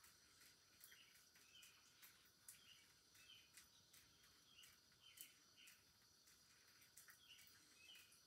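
Near silence: room tone with faint, short, high chirps about once or twice a second.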